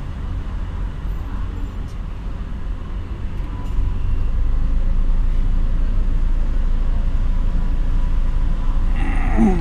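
Steady low rumble of a car heard from inside the cabin, its engine idling, growing louder about four seconds in. Near the end a brief falling-pitched voice sound.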